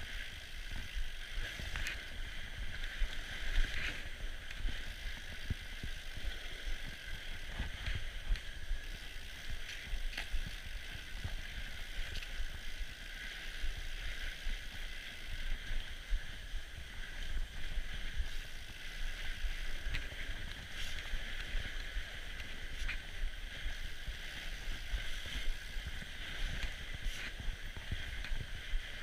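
Norco Bigfoot fat bike rolling along packed-snow singletrack: a steady low rumble from the tyres and frame, with scattered small clicks and rattles, heard through a handlebar-mounted GoPro.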